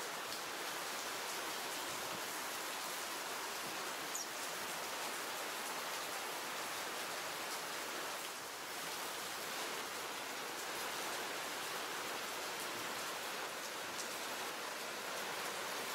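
Steady, even hiss of outdoor background noise, with a few faint ticks.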